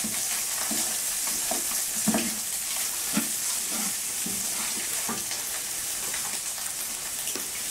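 Fried rice sizzling in a frying pan while being stirred, with a utensil scraping and knocking the pan at irregular intervals about once a second.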